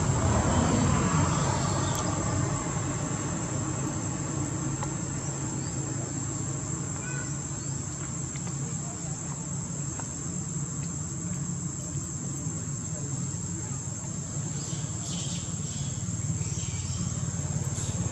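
Insects droning steadily at one high pitch, over a low steady rumble.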